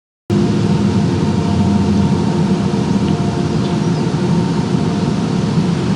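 A steady low rumbling noise that starts abruptly a moment in and holds at an even level, with a few faint steady tones.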